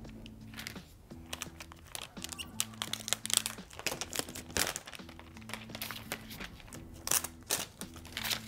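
Thin clear plastic protective film crinkling and crackling in irregular bursts as it is peeled off a new tablet's screen and handled, over soft background music.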